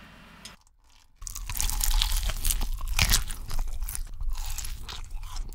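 A faint hiss of chicken frying in oil. About a second in, loud crunching takes over: bites into crispy fried chicken and the chewing of its crackling crust, close to the microphone.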